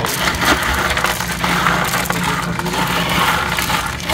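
Small hard filter-media balls pouring and rattling out of a plastic basin into a mesh bag in a plastic drum, pushed along by hand: a dense, continuous clatter of clicks.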